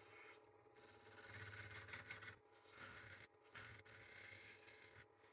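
Very faint scraping of a turning tool cutting the inside of a spinning wild olive bowl on a wood lathe, in several passes with short breaks between them.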